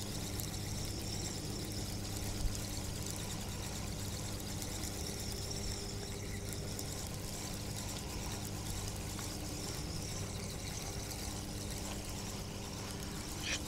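Spinning reel on a feeder rod being cranked steadily to wind in a hooked bream, over a steady low hum and hiss, with one small tick about two and a half seconds in.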